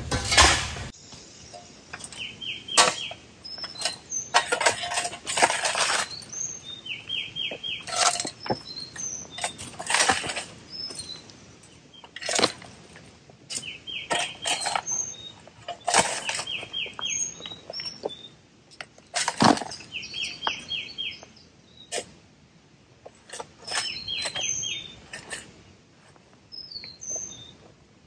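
Shovels scraping and striking into rocky dirt, a dozen or so separate strokes. Birds chirp throughout in short, quick runs of repeated notes.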